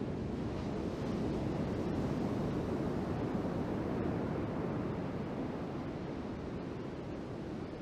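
Steady rushing noise of strong wind on the microphone mixed with breaking surf, swelling a little about two seconds in and easing toward the end.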